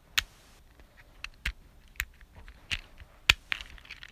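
Fidget cube being clicked by hand: a handful of sharp plastic clicks at irregular intervals, the loudest about three seconds in.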